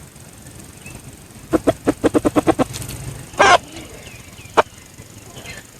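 Red junglefowl calling: a quick run of about ten short clucks, then one louder harsh squawk and a single sharp click, with faint chirps of small birds in between.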